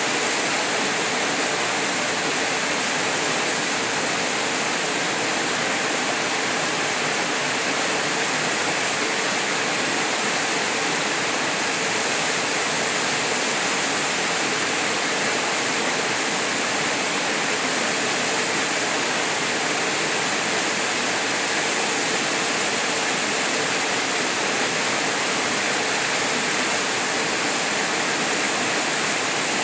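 Small waterfall pouring into a plunge pool: a steady, unbroken rush of falling water.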